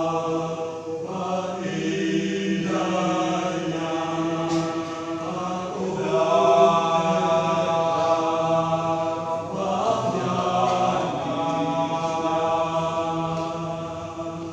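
Church choir singing a sacred song with long held chords, the sound fading near the end.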